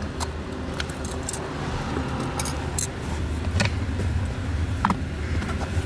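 Scattered light clicks and small rattles of hands handling things in a car's interior, over a steady low hum.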